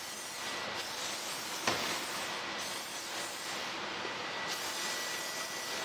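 Aerosol can of WD-40 spraying in a steady hiss onto corroded underbody bolts, with one short click about a second and a half in.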